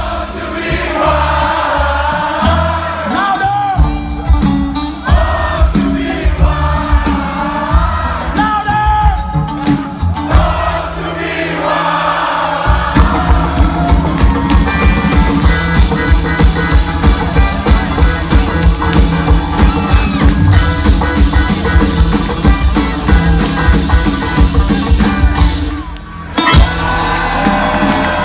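Live band playing a bluegrass-style cover of a rock song, with singing for the first dozen seconds, then an instrumental stretch over a steady, fast beat. The music drops out briefly near the end, then comes back.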